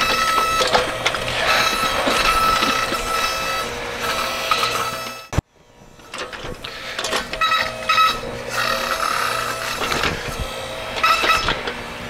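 A homemade backhoe's electric-motor-driven hydraulic pump whines steadily as the arm and bucket dig, with bursts of the bucket scraping through soil. The sound cuts off suddenly a little past the middle, then starts again.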